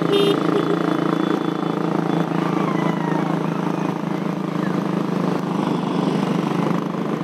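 Motorcycle engine running steadily while riding. A vehicle horn's rapid beeps cut off just as it begins.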